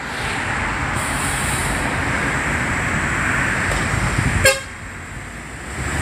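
Agra Mas coach bus passing close, its engine running and tyres hissing on the wet road as a steady noise. A short, sharp horn blip about four and a half seconds in, after which the noise drops away.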